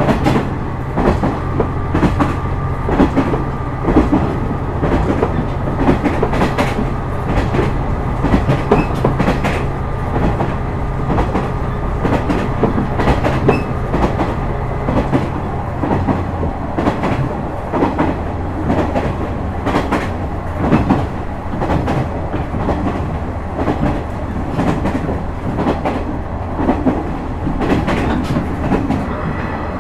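Running sound inside a KiHa 126 series diesel railcar: the diesel engine hums steadily while the wheels click over rail joints again and again. About halfway through, part of the engine's steady tone drops away, leaving a lower note.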